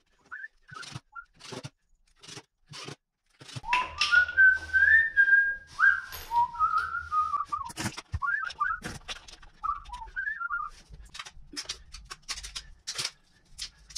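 A man whistling a tune: a few short notes at the start, then a longer wandering melody from about four seconds in until about eleven. Light clicks and taps of small metal parts, bolts and washers being handled, run alongside.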